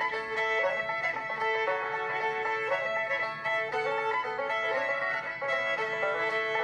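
Bluegrass-style banjo music, a quick run of plucked notes, possibly with fiddle.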